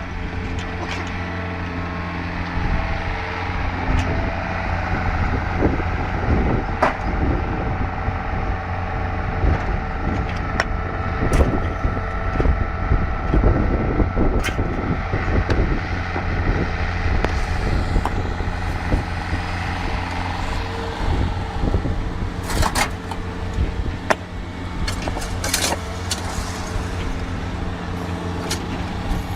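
Heavy diesel engine of road-construction machinery running steadily, with occasional metallic knocks.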